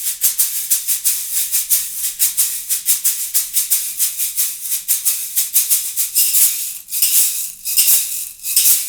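Latin Percussion Rock Shaker, an aluminium tube shaker, played in a steady fast rhythm of about four to five strokes a second, with a piercing, sharp sound and the fill shuffling a little inside. From about six seconds in the strokes become longer, smoother washes.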